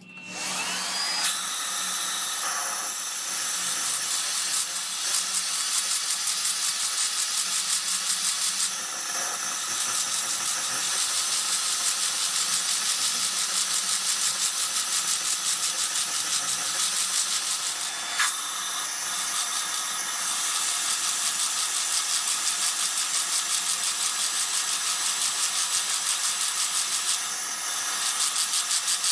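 Electric drill driving a valve relief cutter into the pistons of a 318 V8 short block, cutting valve reliefs; a steady run with a fast, even pulsing chatter that eases briefly about 9 and 18 seconds in.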